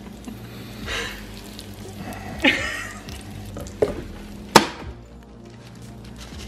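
Breaded chicken patties sizzling in hot oil in a skillet. There are two sharp knocks a little past the middle, the second louder.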